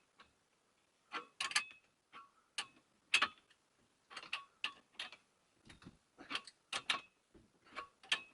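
Spanners working the nuts on the threaded bar of a homemade headset press: irregular sharp metallic clicks and clinks, a few each second, as the bottom headset cup is drawn into the head tube.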